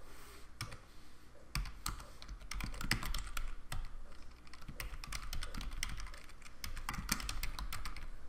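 Typing on a computer keyboard: quick, irregular runs of key clicks with short pauses between them.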